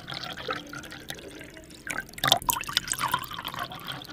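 Thick blended mango lassi pouring from a steel blender jar into a glass jug, the stream splashing unevenly into the rising liquid, with one louder splash a little past two seconds in.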